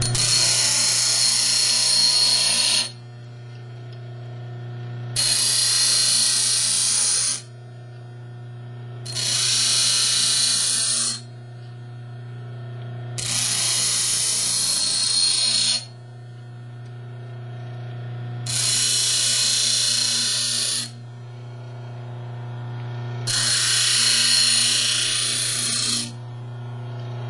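Bench grinder motor running with a steady hum, and a steel hacksaw blade pressed against its coarse wheel six times in turn, each pass a harsh, hissing grind of two to three seconds. This is rough-grinding a lock-pick blank out of the blade.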